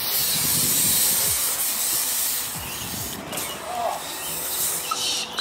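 BMX tyres rolling and carving on a concrete skatepark bowl, a steady loud hiss that eases off after about three seconds, with a couple of sharp knocks near the end.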